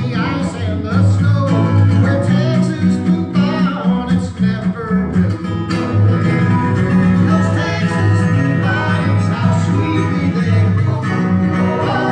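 Live acoustic country-bluegrass music: two acoustic guitars strumming under a lap-style slide guitar, with singing near the end.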